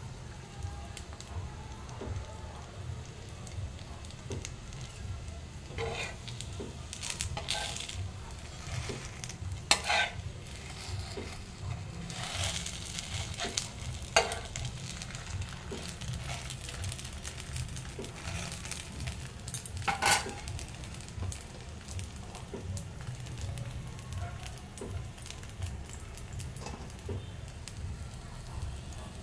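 Thin rice-flour crepe sizzling softly in a greased frying pan. A metal spatula scrapes against the pan a few times, in short strokes, as the crepe is filled and rolled.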